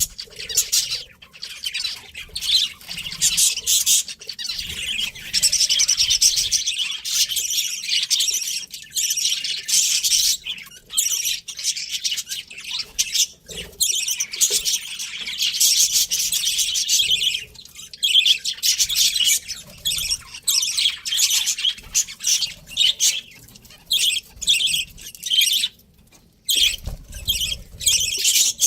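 Budgerigars chirping and warbling in fast, high-pitched chatter with short pauses. A brief low rumble comes near the end.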